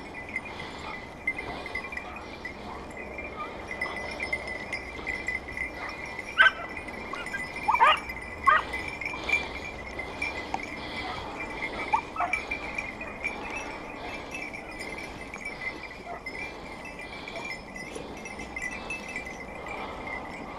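A hunting dog's collar bell tinkling steadily as the dog works through the scrub, with a few short, high yelps from the dog about six, eight and twelve seconds in.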